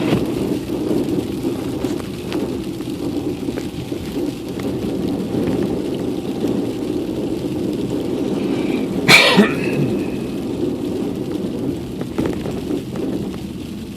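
Steady rumble of a car driving through snow, with a sharp clack and brief squeak about nine seconds in.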